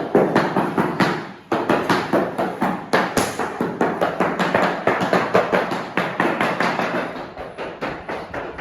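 Background music with a fast, steady percussive beat, about three to four beats a second.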